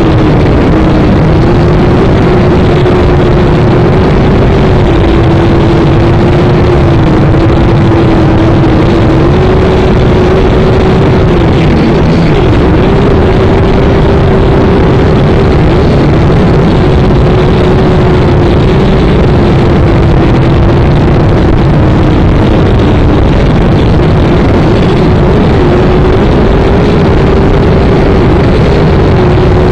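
A small drone's electric motors and propellers whirring loudly and without a break, heard close up through the drone's own onboard camera microphone. The pitch drifts a little up and down as it flies.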